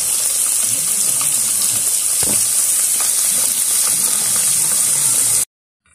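Thattai vadai patties deep-frying in hot oil in a pan: a loud, steady sizzle that cuts off suddenly near the end.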